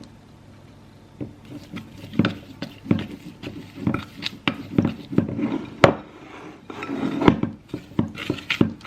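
A spoon clinking and scraping against a mixing bowl as icing is stirred: an irregular run of knocks and scrapes, a few a second, starting about a second in.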